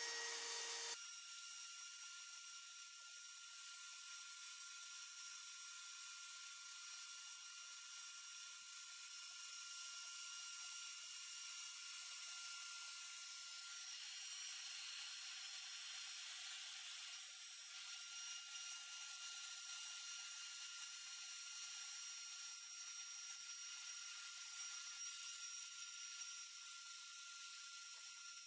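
Makita router on a Lowrider2 CNC spinning at high speed: a steady high-pitched whine with hiss.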